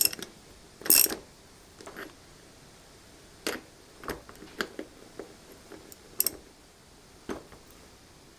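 Scattered sharp metal clicks and clinks of a wrench working the castle nut on a quad bike's front axle, turning it up to the next slot so the split-pin hole lines up. The loudest clicks come at the start and about a second in, then lighter ones every second or so.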